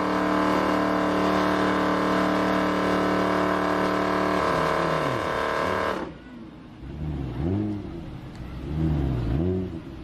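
Car engines: a loud engine note holding a steady pitch for about six seconds, which cuts off suddenly. After that an engine revs up and down a few times.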